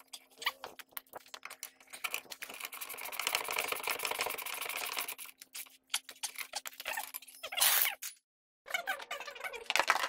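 Ratchet wrench clicking rapidly while the lower mounting bolt of a new rear shock absorber is tightened, with scattered metal clicks and knocks around it.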